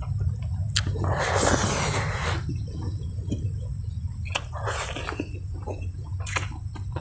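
Wet eating sounds of a man eating rice and curry by hand: a long slurp about a second in, a shorter one near the end of the fifth second, and scattered smacking clicks of chewing.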